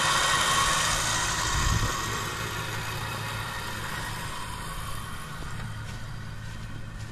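Electric winch in a pickup bed reeling in its steel cable under load, a steady motor and gear whine over the truck's engine idling. It grows fainter after about two seconds.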